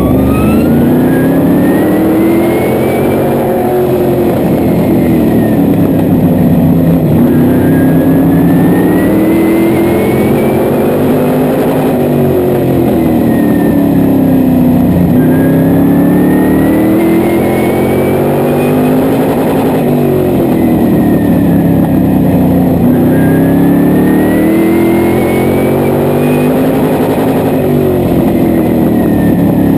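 Modified race car's engine heard from inside the cockpit, revving up and easing off in a repeating cycle of several seconds as the car laps the oval.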